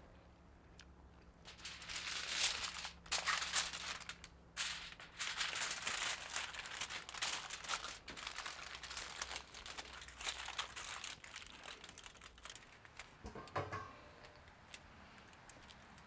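Aluminium foil being crinkled and folded tightly around a rack of sauced ribs, in crackling bursts that go on for about ten seconds and then die down.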